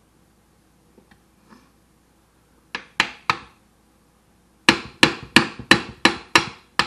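Hammer blows on the metal track of a Ford Explorer power seat: a couple of light taps, three sharp strikes about three seconds in, then a run of seven harder strikes at about three a second near the end.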